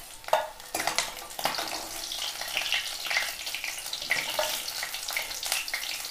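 Small carp frying in hot mustard oil in a metal wok: a steady crackling sizzle, with a metal spatula scraping and clicking against the wok as the fried fish are lifted out, the sharpest clicks in the first second and a half.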